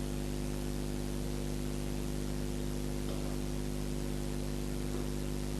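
Steady electrical mains hum with a layer of hiss: a stack of even low tones that does not change. Two faint soft taps come about three and five seconds in.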